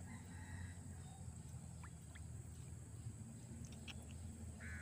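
Quiet outdoor background: a faint steady low rumble with a few soft clicks, and a short chirping call near the end.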